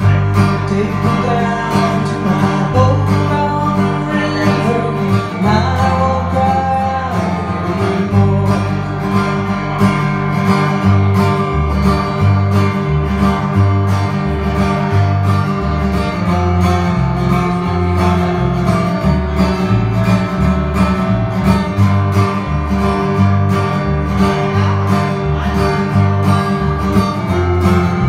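Live duo on two amplified guitars, an electric and a hollow-body archtop, playing a strummed rhythm with a melody line over a low bass line that steps from note to note.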